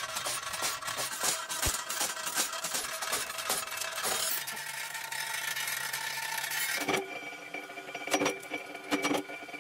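Steel rods and metalworking machinery rattling and clanking, a dense run of quick metallic clicks and knocks. About seven seconds in it changes to a few separate, sharper metal knocks over a steady hum.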